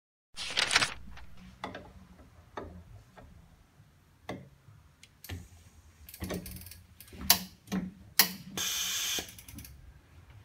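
Clicks, clacks and knocks of a wax injector's mould clamp mechanism being worked, with a short hiss at the start and another hiss lasting under a second near the end, just after two sharp clicks.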